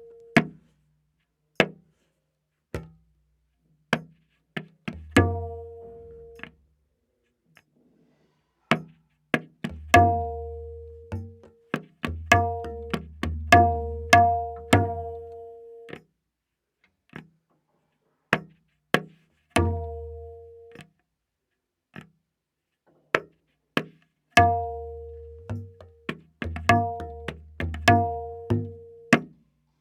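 Solo tabla playing a slow vilambit ektaal theka, the dayan tuned to A#. Sparse ringing treble strokes come in phrases, with deep resonant bayan bass strokes under them and brief pauses between.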